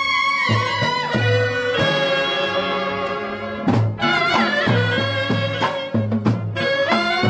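Brass band playing a melody, reed and brass instruments carrying the tune in wavering held notes over a steady low drum beat, with two cymbal-like crashes in the second half.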